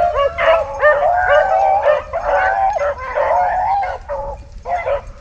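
A pack of rabbit hounds baying and howling together, many voices overlapping without a break, the sound of hounds running a rabbit's track.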